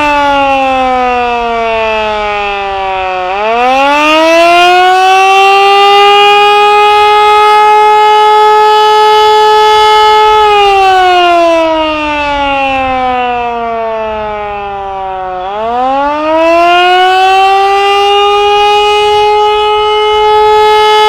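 Canadian Model 2 outdoor warning siren sounding the Attack signal: a slow, loud wail that winds down in pitch, bottoms out about three seconds in, winds back up, holds a steady high tone, then winds down again from about ten seconds in and climbs back to the high tone near the end.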